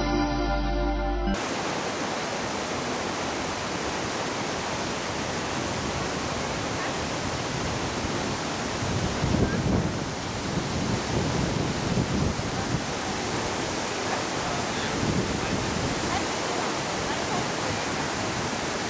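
Soft background music that cuts off about a second in, then the steady rushing of river water through a rocky gorge, with a few low bumps near the middle.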